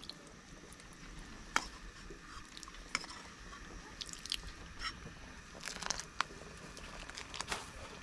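Broth pouring in a thin stream from a small bowl into a pot of squid sour soup, a soft trickle, with scattered light clicks and taps of the ladle and bowl.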